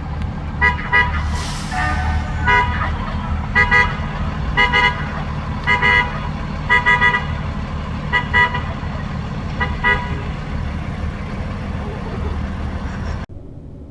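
A series of about fifteen short, high-pitched toots or squeaks coming irregularly over a steady low hum.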